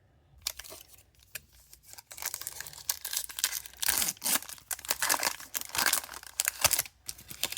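Wrapper of a hockey trading-card pack being torn open and crinkled by hand. A few light clicks come first, then dense crackling from about two seconds in.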